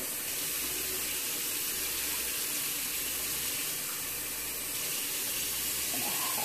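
Cold water being poured steadily into the nonstick inner pot of a Black+Decker rice cooker over uncooked rice, measuring the water for cooking.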